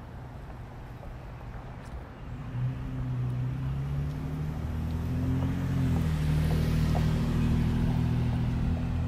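A white SUV's engine running at low speed as it comes up and drives past close by. Its low hum starts about two and a half seconds in and grows louder, with a rush of road noise around the middle.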